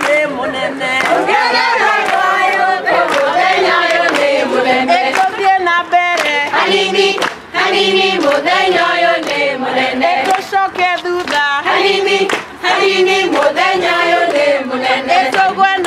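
A group of people singing together, with hand-clapping along to the song.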